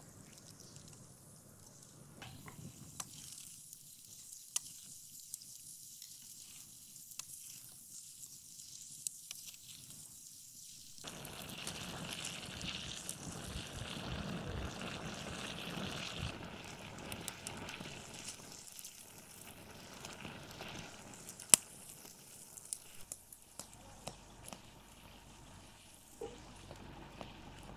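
Pot of pomegranate seeds and juice cooking over a wood fire, with a faint hiss of sizzling and simmering and scattered sharp crackles from the burning wood. The hiss grows fuller about a third of the way in, and the loudest crackle comes a little past the middle.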